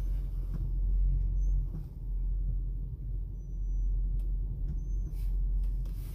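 Steady low rumble of a car's engine and road noise heard from inside the moving car's cabin, with a couple of faint clicks about four and five seconds in.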